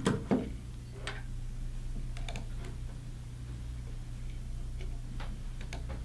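Small clicks and taps as the joystick and an offset Phillips screwdriver are handled on a tabletop: two sharper clicks right at the start, then a few scattered light ticks. A steady low hum runs underneath.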